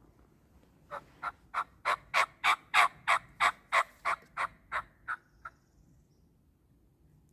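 A series of turkey yelps: about sixteen short, sharp notes, roughly three a second. They build to loudest in the middle and fade out about five and a half seconds in.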